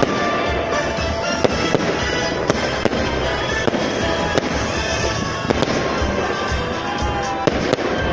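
Aerial firework shells bursting in a display: a dozen or so sharp bangs at uneven intervals, with music playing underneath.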